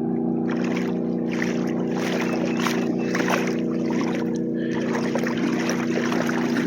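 A steady engine hum with several fixed pitches, like a motorboat running on the river, under a dense rush of noise from a large flock of water birds that starts about half a second in.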